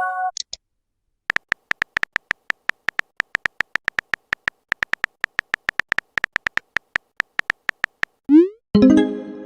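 Phone keyboard typing clicks, several a second, as a message is typed; near the end a short rising pop followed by a chiming message notification tone.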